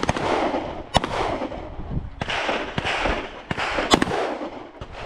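Several handguns firing on the line, shots at irregular intervals from more than one shooter, some nearly on top of each other, each with a long echoing tail.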